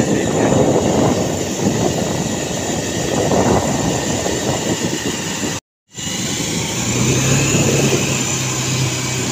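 Bajaj Pulsar 220 motorcycle's single-cylinder engine running while riding along, with wind rushing over the microphone. The sound cuts out for a moment just past halfway. After that a steady low engine hum stands out.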